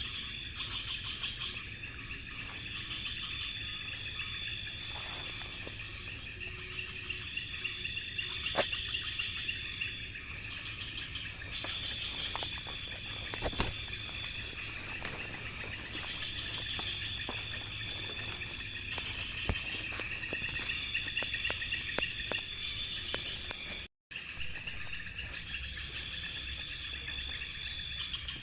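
Night insect chorus of crickets and other insects in tropical forest: a steady high buzz under a trilling chorus that comes and goes in phrases of a few seconds, with a couple of sharp clicks. The sound cuts out for a moment near the end.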